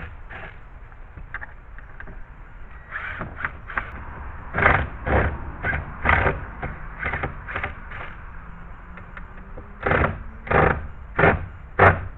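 Hand-tool work on a gate hinge being taken off: an uneven run of knocks, scrapes and brief squeaks, ending with four sharper knocks a little over half a second apart.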